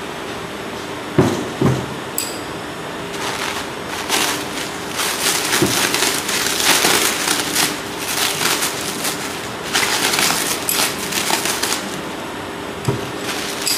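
Plastic bag or wrapping film crinkling and rustling as it is handled, with two knocks about a second in, over a steady background hum.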